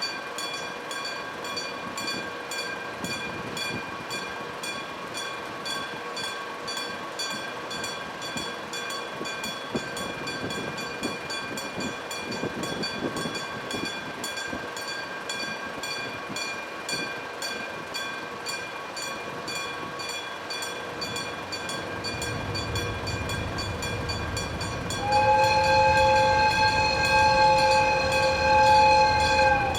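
Electric-bell level crossing signal ringing continuously, while the low rumble of an approaching ND552 diesel locomotive builds. About 25 seconds in, the locomotive sounds a loud two-tone horn, held for about four and a half seconds.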